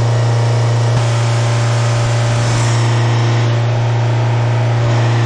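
Small van's diesel engine running at a steady speed, heard close up with the bonnet open: a loud, even hum that holds without change, as during a diesel particulate filter regeneration.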